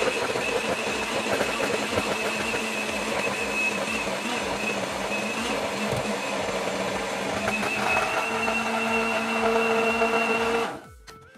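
Electric countertop blender running, blending chopped pandan leaves into a green purée. Its motor note becomes steadier about eight seconds in, and it switches off near the end.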